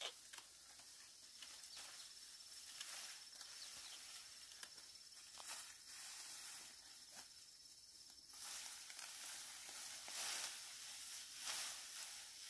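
Dry ripe rice stalks rustling and crackling as they are cut by hand and gathered into bundles. There are short sharp snaps throughout, with louder rustling bursts about two-thirds of the way in.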